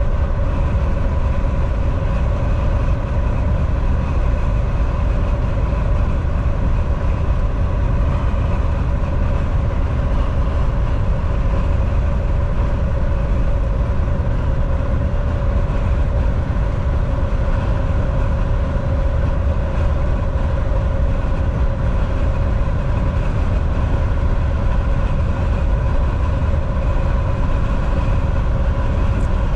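Semi truck driving steadily at road speed: a loud, unchanging rumble of engine and road noise with a steady hum of even tones above it.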